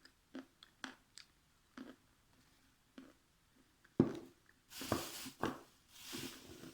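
Close-up crunching and chewing of dried clay: scattered small clicks, then a sharp crack of a bite about four seconds in, the loudest sound, followed by two longer crunching spells.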